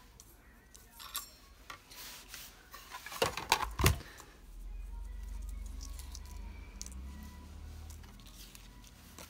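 Handling noise from die-cutting materials: light clicks and rustles of a thin metal cutting die lifting off cut cardstock, with a brief clatter of the plastic cutting plates being moved about three and a half seconds in, followed by a low steady rumble.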